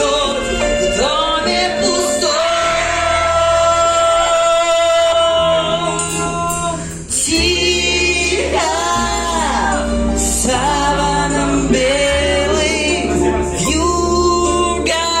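A woman singing a slow song in long held notes with vibrato, over instrumental backing with a steady bass line. The music dips briefly about seven seconds in, then carries on.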